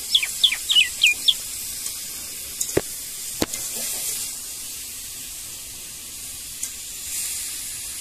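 Common myna giving a quick run of about seven short, high, falling whistled notes in the first second and a half, then two sharp clicks about three seconds in, over a steady background hiss.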